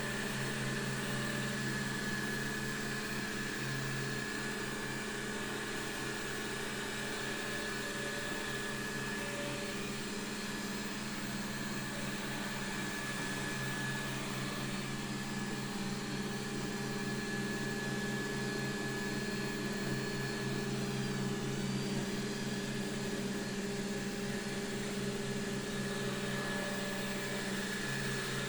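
Xiaomi Mi Robot Vacuum Mop 2 running as it cleans: a steady hum from its suction fan and drive motors, with a thin high whine over it.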